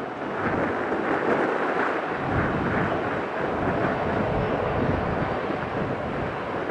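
Steady, distant jet aircraft engine noise, with wind buffeting the microphone.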